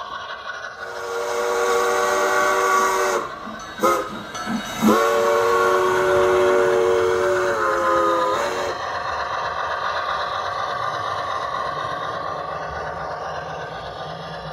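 Multi-chime steam whistle from an HO scale model CN 2-6-0 steam locomotive: one long blast, two short toots, then a second long blast that dips slightly in pitch before cutting off about nine seconds in. The model train's steady running sound continues under and after it.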